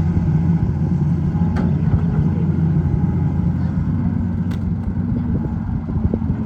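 Hitachi EX200 excavator's diesel engine running steadily at a constant speed, with two faint clicks from the working machine.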